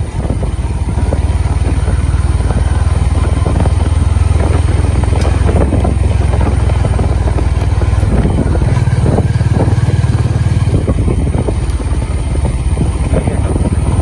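Motorcycle engine running steadily while riding along at a constant pace, with wind rushing over the microphone.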